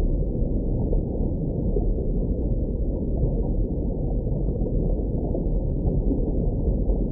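Muffled, low water noise as heard underwater: a steady churning rumble with no highs at all.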